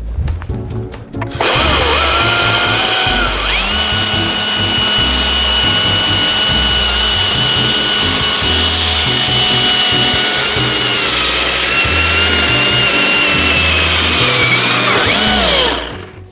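Battery-powered chainsaw cutting into a birch trunk: the motor spins up about a second and a half in, runs under load with a steady high whine for about fourteen seconds, then winds down near the end.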